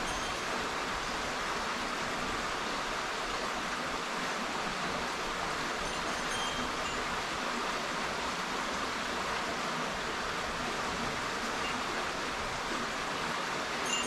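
A small stream flowing steadily, its water rushing over a shallow step in the streambed.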